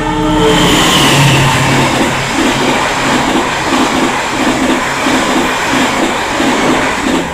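Passenger train passing a level crossing at close range: a loud rushing roar with a rhythmic clacking of wheels, about two to three beats a second. The tail of a train horn blast fades out in the first half-second, and the noise drops away abruptly at the end as the last coach goes by.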